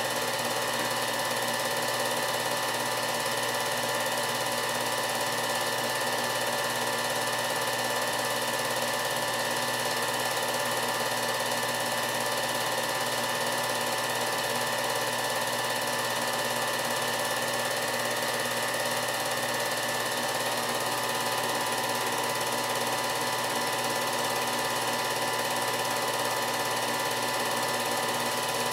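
Film projector running: a steady mechanical whir and clatter that holds unchanged throughout, with no other sounds over it.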